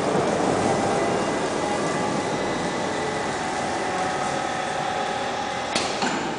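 Automatic pallet stretch wrapping machine running, its turntable drive giving a steady mechanical hum with a faint whine. Two sharp clacks near the end.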